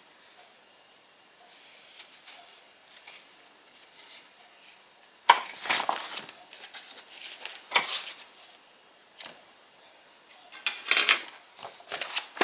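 Printed paper sheets being handled and their pages lifted, rustling in a few short, louder bursts about five, eight and eleven seconds in, after several seconds of faint handling sounds.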